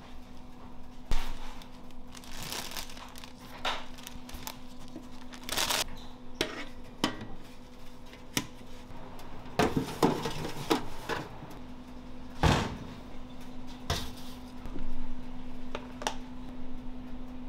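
Kitchen handling sounds: gloved hands moving burger buns in stainless steel pans and shifting a clear plastic lid, giving scattered clinks and knocks. There is a cluster of knocks about ten seconds in and the loudest knock a little after, over a steady electrical hum.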